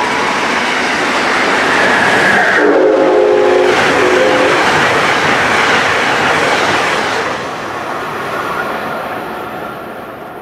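Amtrak Northeast Regional train of stainless-steel coaches passing at speed behind its electric locomotive: steady wheel and rail noise and rushing air, fading away after about seven seconds as the last cars clear. A brief horn-like chord sounds about three seconds in.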